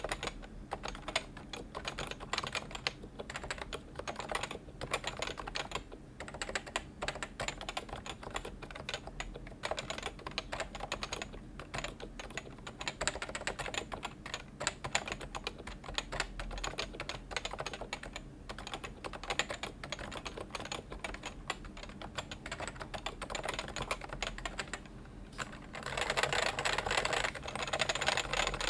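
Continuous typing on a Realforce 106U Topre keyboard: its 45 g rubber-dome keys, silenced with Deskeys rings and capped with PBT keycaps, make a steady stream of muffled, irregular key strokes. Near the end the keystrokes grow louder and denser.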